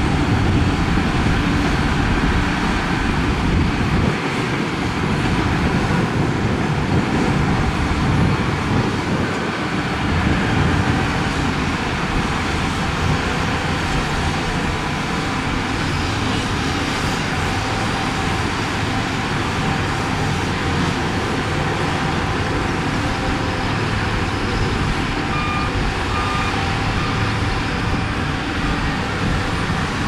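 Diesel engines of several Shantui crawler bulldozers running steadily under load while pushing mud. Three short beeps from a reversing alarm come near the end.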